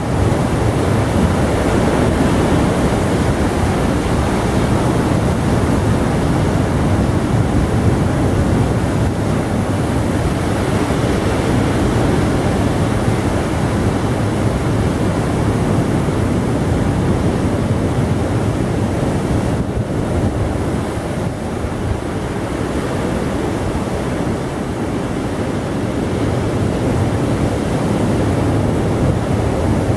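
Surf breaking and washing among shoreline boulders: a steady rush of waves that eases slightly about two-thirds of the way through.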